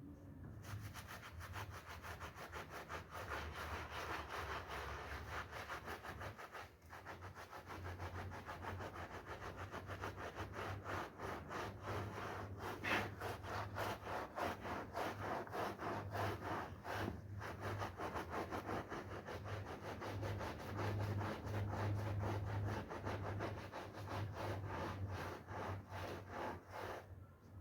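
A brush scrubbing a wet, soapy wool carpet in quick repeated strokes, with a steady low hum underneath.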